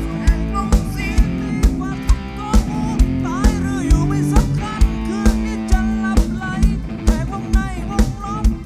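Live rock band playing an instrumental passage: a drum kit keeps a steady beat of about two kicks a second under held bass notes and a lead melody with pitch bends.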